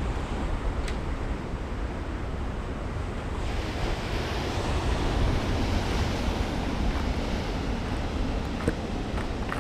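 Ocean surf breaking and washing over rocks, with wind buffeting the microphone in a steady low rumble. The surf grows louder and hissier for a few seconds around the middle, and a few light clicks come near the end.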